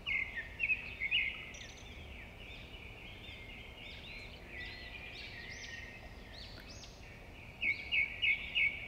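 Small birds chirping: a steady run of short, high chirps, with a quick series of about five louder chirps near the end.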